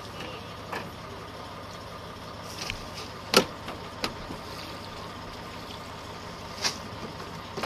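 A few sharp wooden knocks as cargo is handed down onto a wooden boat alongside. The loudest comes about three and a half seconds in, over a steady engine hum.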